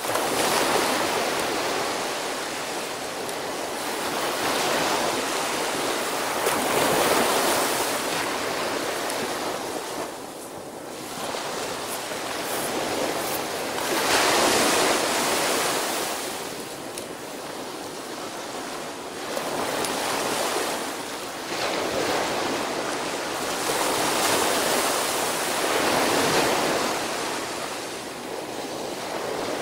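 Small sea waves breaking on a sandy beach and washing up the shore. The surf swells and eases every few seconds.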